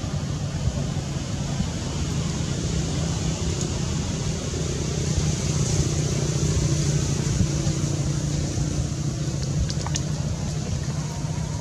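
Steady low mechanical hum, like an engine running, over a constant hiss, with a few faint clicks near the end.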